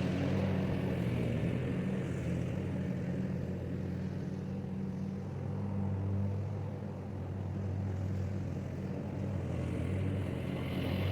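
Lawnmower engine running steadily while mowing, with a steady low engine note.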